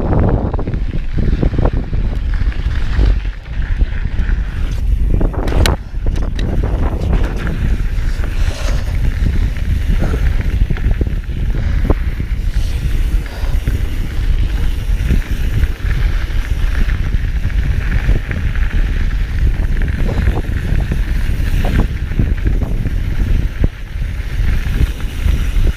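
Wind buffeting the microphone of a camera riding on a mountain bike on a dirt trail, a steady low rumble, with scattered knocks and clicks from the bike over the ground.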